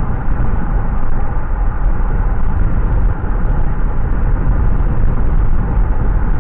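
Steady rumble of a car driving along a road, loud and heaviest in the low end, with no clear engine note.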